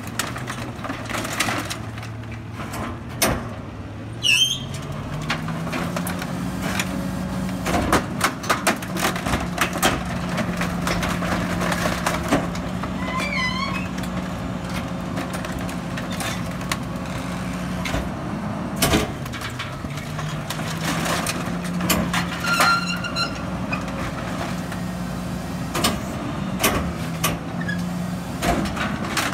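Rear-loader garbage truck's natural-gas engine speeding up to drive the hydraulic packer, its pitch rising about four seconds in, dipping near the middle and climbing again, under repeated cracks and knocks of wood and sheet debris being crushed in the hopper. A couple of brief high squeals cut through.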